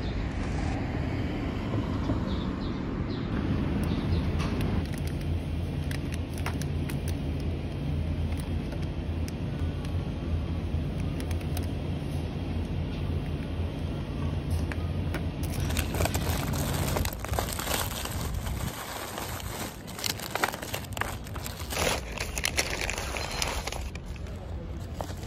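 A steady low hum with light clicks and knocks as cans and groceries are handled in a shopping basket. From about two-thirds of the way in, the hum gives way to a run of sharper clicks, knocks and rustling as a canvas tote bag of groceries is opened and packed.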